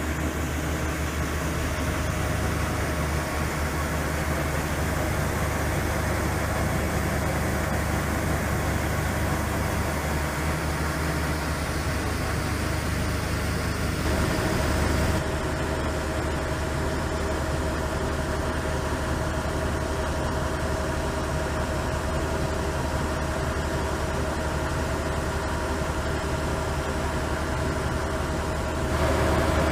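AGRAR-bag ex-bag grain bag unloader and its auger running steadily, under engine power, while emptying grain from a silo bag. The result is a continuous mechanical drone with a steady hum. The tone of the drone shifts about halfway through.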